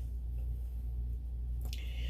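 Steady low hum under quiet room tone, with a brief soft rustle near the end.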